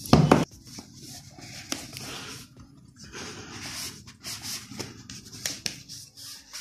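A cardboard smartphone box being handled and turned over by gloved hands. There is a loud thump just after the start, then rubbing and rustling of the packaging with a few light clicks.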